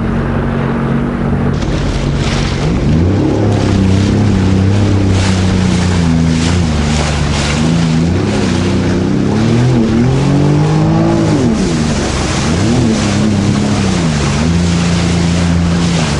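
Jet ski engine running, its revs rising and falling over and over while it manoeuvres, with water hissing and splashing against the hull.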